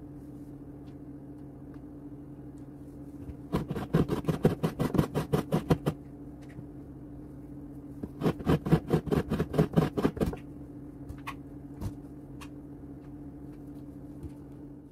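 Coconut flesh scraped against the serrated metal blade of a kudkuran, a bench-mounted coconut grater: two runs of quick rhythmic scraping strokes, about five a second, with a steady low hum underneath and a few light clicks near the end.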